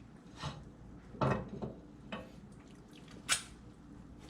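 A few scattered light clinks and knocks of plates and utensils, the sharpest click about three seconds in.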